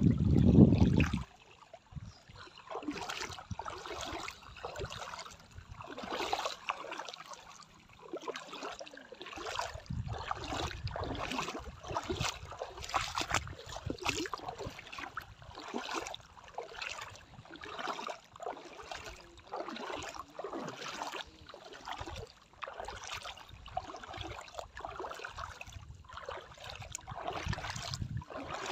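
Feet wading through shallow seawater, splashing in an even rhythm of a little more than one step a second. A short loud low rumble comes first.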